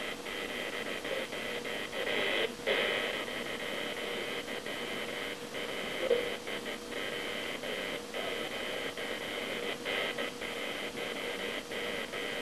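Electric hair clippers buzzing steadily as they shave close along the neck and jaw.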